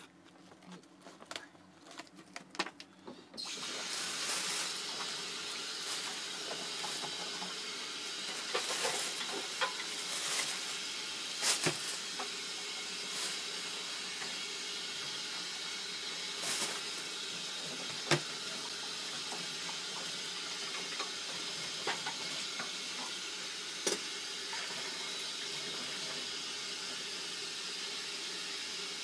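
Kitchen tap turned on about three seconds in, water then running steadily into a stainless steel sink, with occasional knocks of things handled in the sink. Before the water starts there are only a few light handling clicks.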